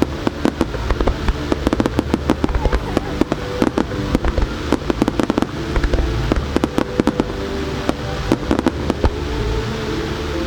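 Starmine fireworks display firing a rapid barrage of shells, many sharp bursts and reports a second overlapping one another, thinning out near the end.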